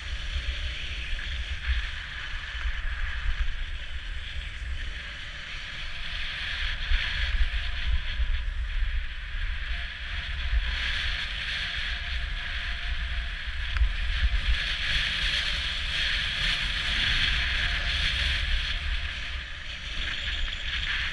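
Skis hissing and scraping over groomed snow on a downhill run, swelling louder for several seconds past the middle, with wind rumbling on the microphone throughout.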